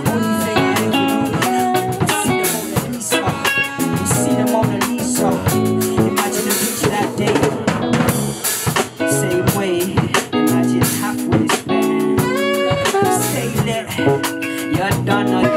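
Live rock band playing: drum kit keeping a steady beat with electric guitar and bass guitar.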